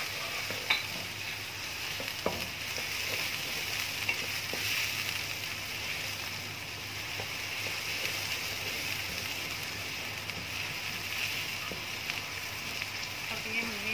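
Thinly sliced onions and whole spices sizzling steadily in hot oil in a wok while a spatula stirs them, knocking against the pan a few times.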